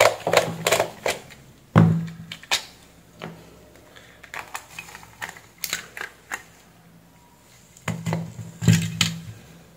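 Plastic epilator housing being unscrewed and opened: a run of sharp clicks and taps from the screwdriver and screws, with plastic creaking and rubbing. A louder cluster of cracks and scrapes comes near the end as the shell halves come apart.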